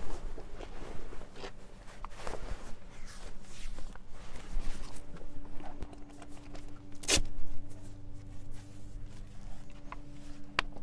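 Horse rug being put on: the nylon rug fabric rustles and its straps and fastenings are handled at the chest, with small clicks. One sharp click comes about seven seconds in.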